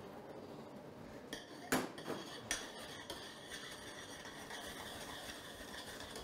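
Metal spoon clinking and scraping against a saucepan as warm cream is stirred into hot caramel, with a few sharp knocks, the loudest just under two seconds in. Underneath is a faint steady hiss from the steaming, bubbling pan.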